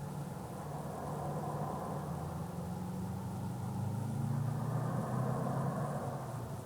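Unexplained low droning hum made of several steady low tones under a hissing wash, swelling louder in the middle and easing off near the end.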